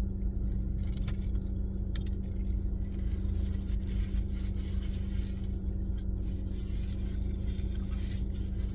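Steady low hum of a car idling, heard inside the cabin. Over it come a few sharp clicks and rustles from someone chewing a burger and handling its paper wrapper.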